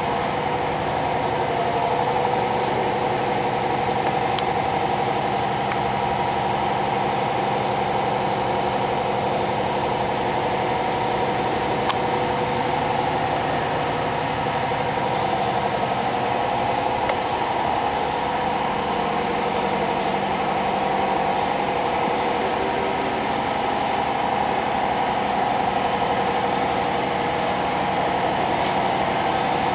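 Steady hum of running shop machinery, with several steady tones held at one pitch throughout.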